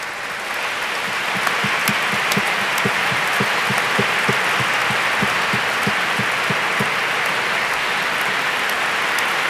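A large audience applauding, a dense steady clatter of many hands. Through the middle runs a low, even beat of about three or four thumps a second.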